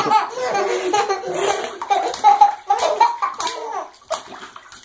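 A baby and a young child laughing together in bursts of belly laughs and giggles. The laughter dies down about four seconds in, leaving light splashing of bathwater.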